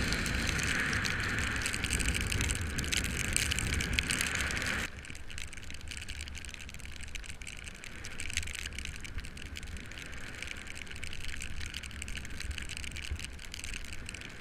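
Wind rushing over the microphone and road-bike tyres hissing on wet asphalt at speed. About five seconds in the noise drops suddenly to a quieter level.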